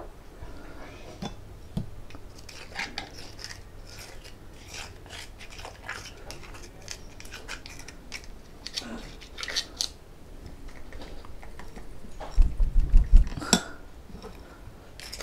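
Cutlery clicking and scraping against plates and bowls during eating, in scattered short clinks. About twelve seconds in comes a quick run of loud low thumps, then a sharp clink.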